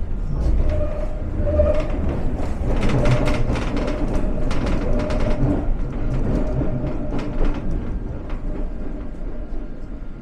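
London Underground S7 Stock train running at speed, heard from inside the carriage: a steady low rumble with a held whine, and clusters of sharp clacks from the wheels on the track, the thickest of them a few seconds in and again near seven seconds.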